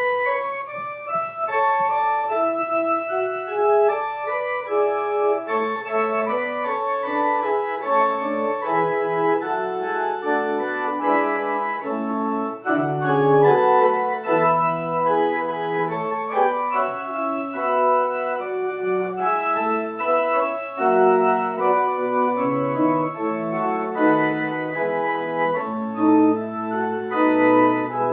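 Pipe organ playing a contrapuntal piece in several voices. It begins with higher lines, lower parts come in about halfway through, and a deep pedal bass enters near the end.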